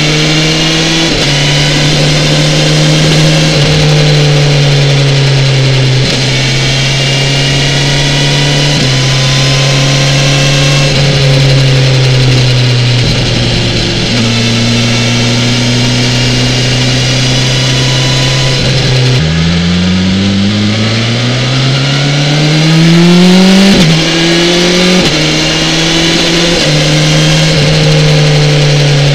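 BMW S1000XR's inline-four engine running on the road, mostly holding a steady note with several sudden drops in pitch. About two-thirds through it revs up in a long rising pitch, at its loudest just before it drops back to a steady cruise.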